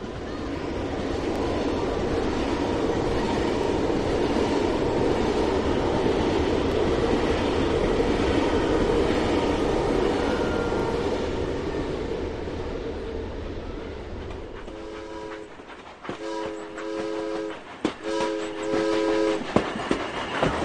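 HO-scale model train running past with a steady rolling rumble that swells and then fades. About fifteen seconds in, a train horn sounds three blasts on a chord. Sharp clicks near the end are wheels passing over rail joints.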